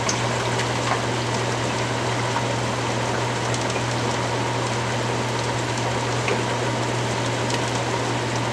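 Steady hiss of food cooking on the stovetop, from a stockpot of meat at the boil and eggplant frying down in oil, over a steady low hum, with a few faint ticks.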